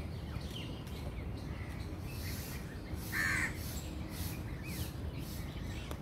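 A crow caws once, a single harsh call a little after three seconds in, over faint scattered bird chirps and a steady low rumble.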